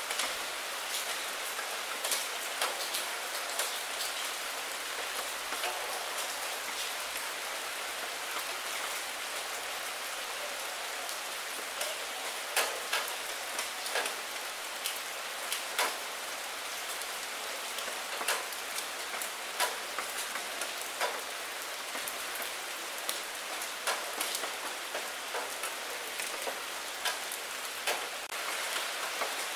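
Steady rain falling on a puddle and wet fallen maple leaves, with scattered sharper individual drop hits every second or two.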